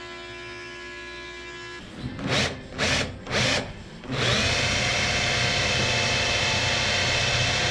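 Handheld electric power tool, triggered in three short bursts, then spinning up and running steadily at full speed for the last few seconds.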